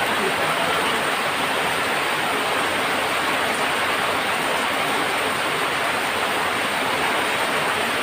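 Heavy rain falling on corrugated tin roofs, a steady dense hiss of drops on metal, with water pouring off the eaves.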